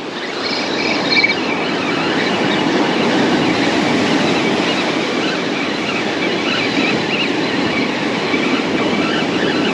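Spinning reel being cranked close by, a steady rattling whir as line is reeled in, over the constant rush of breaking surf.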